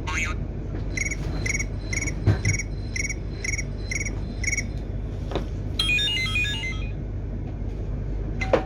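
An electronic alert beeps eight times, about two beeps a second, then about a second later plays a short run of quick electronic notes. A thump comes about two seconds in.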